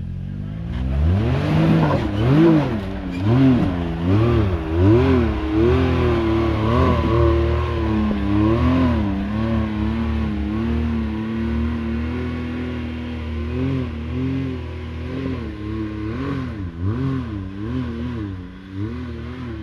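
Can-Am X3 side-by-side engine revving in repeated throttle bursts, pitch rising and falling about once a second, while the machine works its way up a hard trail obstacle. It holds steadier through the middle, then goes back to short bursts near the end.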